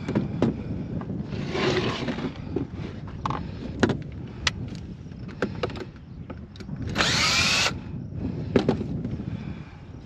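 Cordless drill running in one short burst about seven seconds in, its motor pitch rising as it spins up. Around it, sharp knocks and clatter of a small wooden bird-house box being handled on a plastic utility-vehicle cargo bed.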